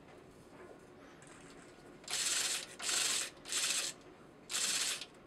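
Metal being worked on a lathe: after a low, steady stretch, a run of short scraping strokes, five of them about two-thirds of a second apart, starting about two seconds in.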